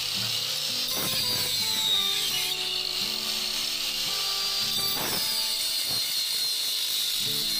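Doliz BA730 angle grinder with a wood-cutting blade, running at speed and cutting into a thick solid-wood plank. Its high whine sags in pitch when the blade is pressed into the cut, about two seconds in and again near five seconds, and then recovers: the motor keeps spinning under heavy load without stalling. Background music plays along.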